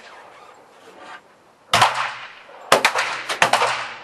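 Three pistol shots in the second half, from shooters firing service pistols at precision targets; each shot is sharp and loud, followed by a ringing echo that dies away over about half a second.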